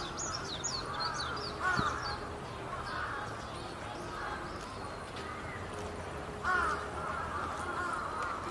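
Crows cawing over a steady outdoor murmur of distant voices, with two louder caws about two seconds in and again near the end. Quick high chirps of small birds overlap the start and stop after about a second and a half.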